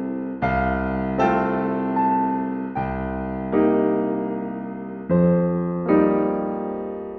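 Slow, gentle background piano music: chords struck about once every second or so, each left to ring and fade before the next.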